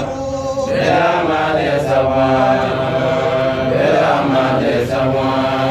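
A group of men chanting together in unison, their voices held on long, drawn-out notes that glide slowly between pitches.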